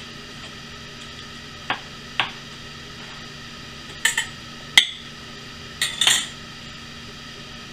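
A slotted metal spatula and small ceramic plates clinking and scraping as meatloaf slices are lifted off a cutting board and plated. Seven short, sharp clinks come in small groups, the loudest a little under five seconds in, over a faint steady hum.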